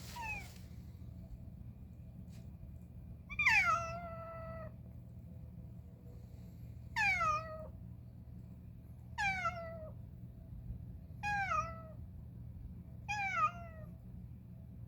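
A stray cat meowing over and over, a call about every two seconds, each meow falling in pitch; the second call is the longest. It is crying persistently, which has its rescuer wondering whether it is in pain.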